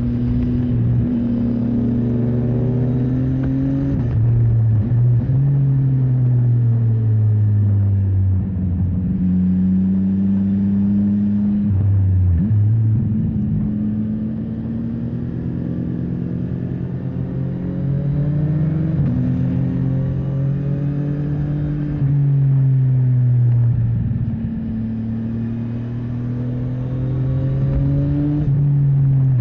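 CFMOTO 675NK motorcycle's inline three-cylinder engine running under load while riding. The revs climb and then drop sharply at gear changes several times, with stretches where they fall away more slowly.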